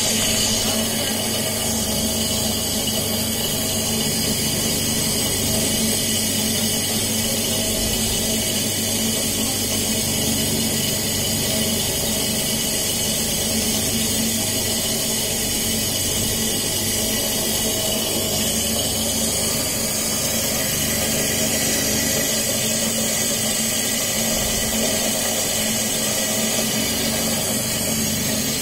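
Electric kharra mixing machine running steadily, its motor spinning the granular areca-nut mix around inside the steel drum with an even hum.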